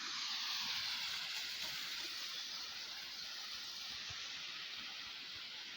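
Running water: a steady rushing hiss that slowly fades.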